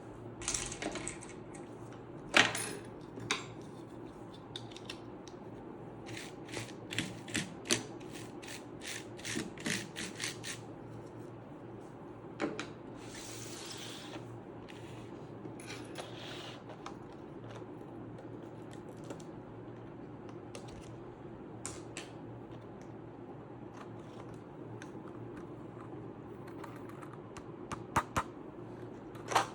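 Plastic keycaps clicking and snapping as they are handled and pressed onto a mechanical keyboard's switches. There is a quick run of a dozen or so clicks about a third of the way in, a brief scraping rustle soon after, then only occasional single clicks.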